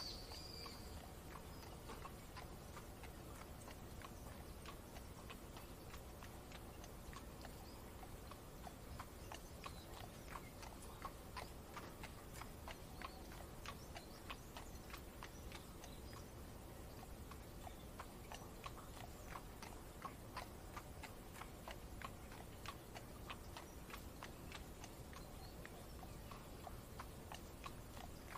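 Horse hooves clip-clopping at a steady walking rhythm over an even hiss of rain.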